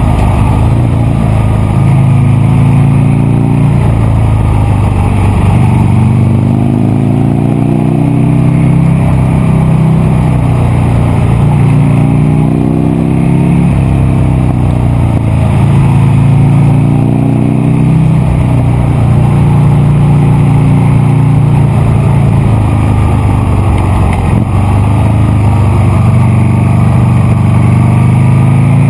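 Buell Lightning XB9SX's air-cooled V-twin engine running loudly under way, its pitch rising and falling back again and again as it is revved and ridden through the gears.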